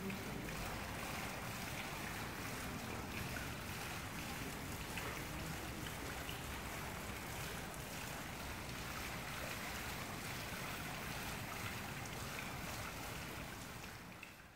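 Water from a tiered stone courtyard fountain splashing steadily into its basin, fading out near the end.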